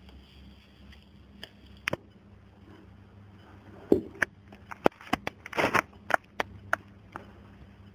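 Irregular sharp clicks and knocks, beginning with a dull thump about four seconds in and bunching together over the next three seconds, with a brief rustle near six seconds.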